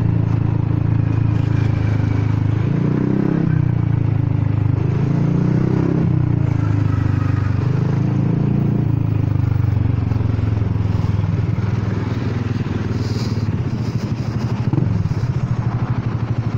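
Honda Forza 300 scooter's single-cylinder engine running through a broken exhaust, with a duck-like note. It rises and falls in pitch a few times as the throttle is opened and closed at low speed, then runs steadier and a little quieter in the second half.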